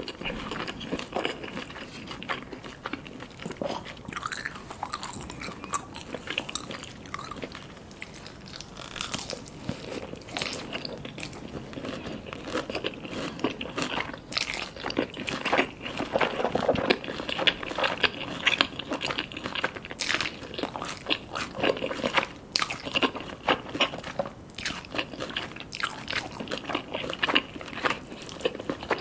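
Close-miked eating: repeated crunchy bites and chewing, the crackle of crispy Korean fried chicken being eaten.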